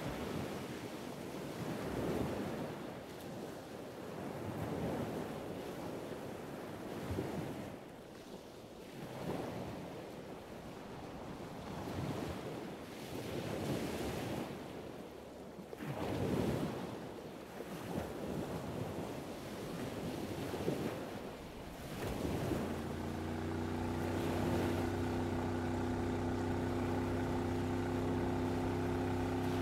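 Waves washing, rising and falling in surges every two to three seconds. About three quarters of the way through, a motorboat engine comes in and runs steadily with a low hum.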